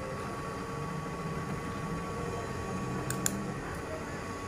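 Steady hum and hiss of a radio power supply's cooling fan, with two quick clicks about three seconds in.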